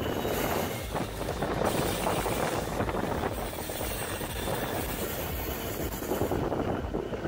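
Diesel freight locomotive hauling a long train of ore wagons, its engine and wheels on the rails running with a steady noise.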